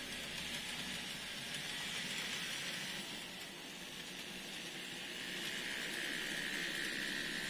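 N scale model train running past: the motors of the BL2 diesel locomotives and the rolling of a long train of cabooses on the track give a steady hiss and rumble, with a thin high whine that grows louder in the second half.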